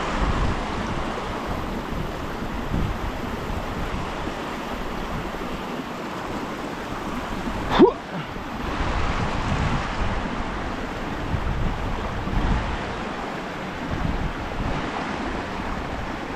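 Steady rush of flowing creek water, with wind buffeting the microphone in gusts. One quick falling chirp stands out about eight seconds in.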